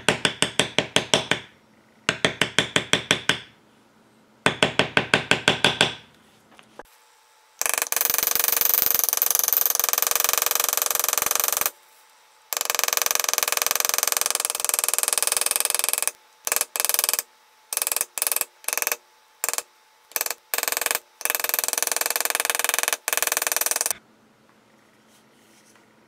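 Rapid mallet taps on a metal leather-stamping tool, tooling wet leather: three short runs of about a dozen strikes a second, then longer, denser runs broken by brief pauses.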